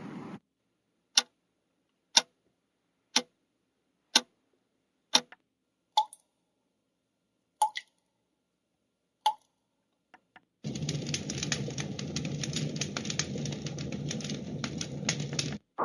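White noise machine's small built-in speaker playing its preset sounds one after another: sharp clicks about once a second, then a few more widely spaced clicks, then a dense crackling noise track that starts about two-thirds of the way through and cuts off abruptly just before the end.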